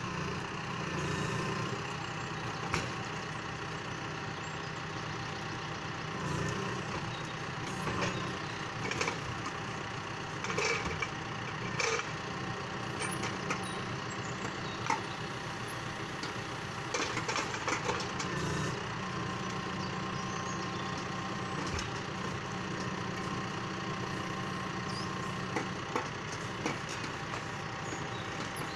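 John Deere 6115M tractor engine running steadily while its hydraulics work a trailer-mounted timber crane, with scattered sharp knocks and clunks from the grapple and logs being loaded.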